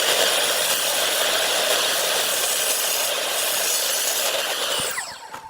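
Electric power tool working hardwood: a loud steady rasping run with a high motor whine, which winds down about five seconds in.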